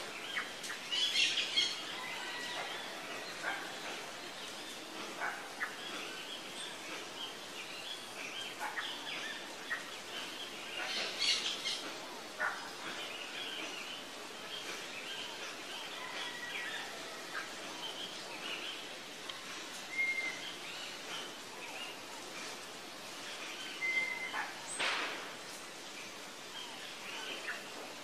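Parakeets chattering with scattered short chirps, broken by a few louder harsh screeches: one about a second in, one around the middle, and one near the end.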